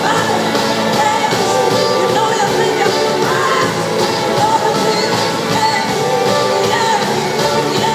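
Live rock band playing, with electric guitars, drums and a horn section, and a woman singing over it, heard from the audience in a large hall.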